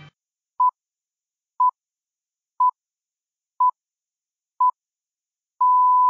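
Radio time-signal pips: five short beeps at the same pitch, one a second, then a longer beep that ends the sequence.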